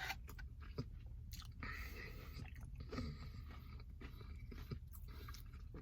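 Faint chewing and crunching of a bite of KFC's fried chicken sandwich on a glazed donut, with scattered small mouth clicks.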